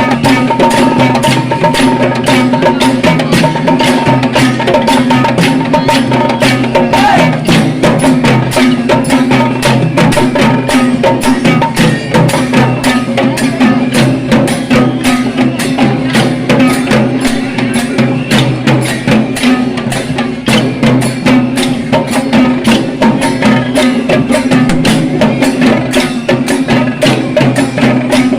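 Traditional Sri Lankan procession drumming: fast, steady drum strokes with a held tone running beneath.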